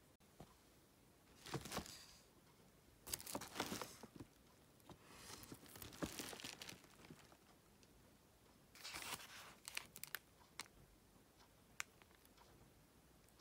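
Paper and cellophane gift packaging rustling and crinkling as it is handled, in several short bursts, with a few light ticks between them.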